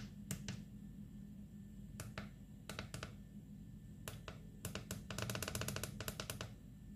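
Plastic push-buttons on a Parkside handheld inspection camera's control unit being pressed: scattered single clicks, then a quick run of clicks about five seconds in as the brightness settings are stepped through.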